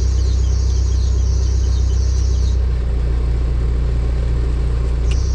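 2004 Mahindra Scorpio engine idling, with a high squeal from its slightly loose A/C drive belt. The squeal stops about halfway through and comes back near the end.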